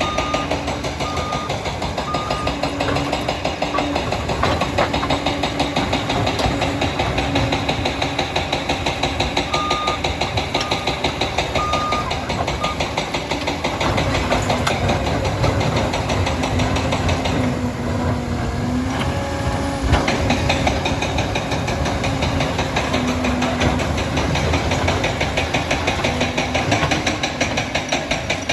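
Liebherr 746 crawler dozer's diesel engine running under load with a constant rattling clatter. Its reversing alarm beeps steadily in two spells, near the start and again about ten seconds in, and a single sharp knock sounds about two-thirds of the way through.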